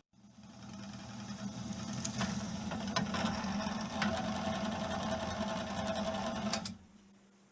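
Drill press running steadily while drilling a hole through a wooden stick, with a few sharp clicks. The motor cuts off shortly before the end.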